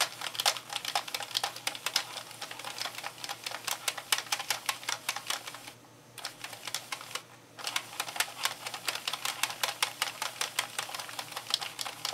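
Sentro 22-needle plastic circular knitting machine being hand-cranked: rapid, even clicking of the needles as the ring turns and knits each row, pausing briefly twice around the middle.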